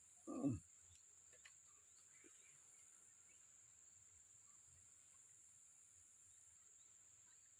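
Steady high-pitched chirring of insects. About half a second in there is one short, dull thump.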